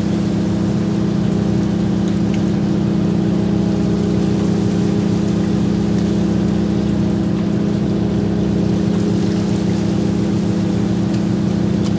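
Fishing boat's engine running steadily, a constant hum with a few faint clicks from deck work.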